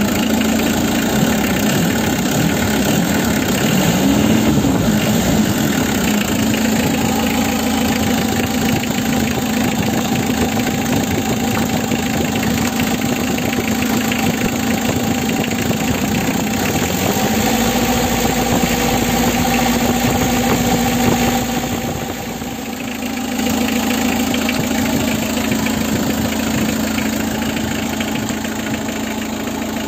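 Mitsubishi L300 pickup's diesel engine idling steadily. The idle briefly rises about four seconds in, then runs a little faster for a few seconds about two-thirds of the way through before settling back.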